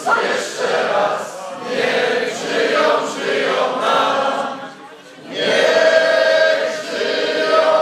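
A large crowd of mostly men's voices singing together unaccompanied, in long held phrases with a brief break about five seconds in.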